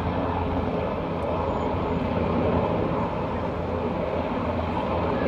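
MRH-90 military helicopter running with a steady rotor and turbine noise and a deep hum at the bottom.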